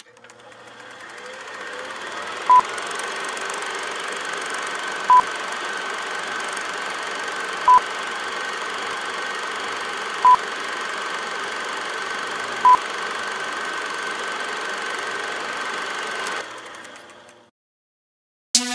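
Five short, single-pitch electronic beeps, evenly spaced about two and a half seconds apart, over a steady noisy hum. The hum fades away near the end into a moment of silence.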